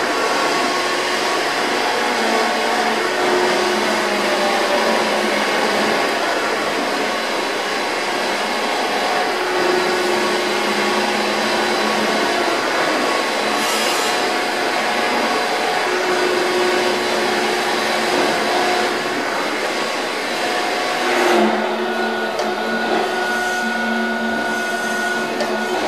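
Rosa RTSC 1000 surface grinder running: a steady, loud whirring hiss with humming tones that shift every few seconds.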